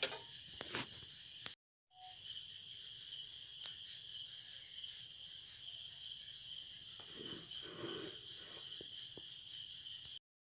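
Crickets chirping in a steady high-pitched pulse, with a few faint clicks of cable connectors being handled.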